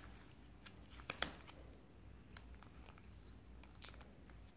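Origami paper being handled and folded by hand: a few faint, sharp crackles and clicks of paper, the loudest a little over a second in.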